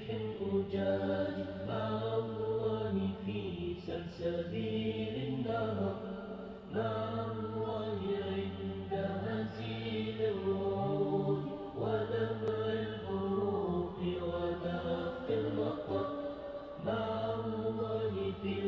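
Arabic Islamic nasheed: voices singing a slow melody in long held phrases of a few seconds each, over a steady low backing.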